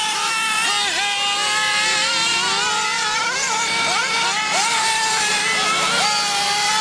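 Several nitro RC cars' small glow-fuel engines running at high revs, their pitches overlapping. Each pitch dips sharply and climbs back up again and again as the cars come off the throttle and accelerate through the turns.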